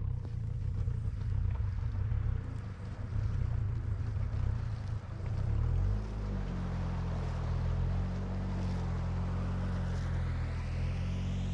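Boat engine running at low speed: uneven for the first few seconds, then a steady low hum from about six seconds in.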